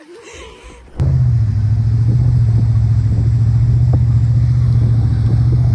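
Boat engine running steadily at a constant speed, a loud low hum that cuts in abruptly about a second in.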